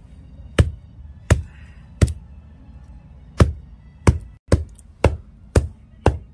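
A small hand-held stone pestle pounding sun-dried fish on a flat grinding stone, about eight sharp stone-on-stone knocks at an uneven pace. The fish is dried so hard that it is not breaking up.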